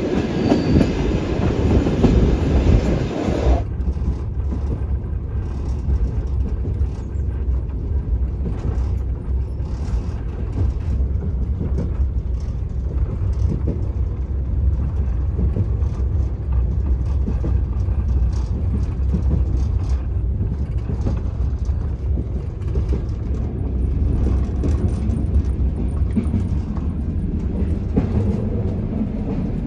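Soviet sleeper train running on the rails: a steady low rumble with faint, irregular clicks of the wheels. About three and a half seconds in, the sound changes abruptly and turns duller, the upper end gone.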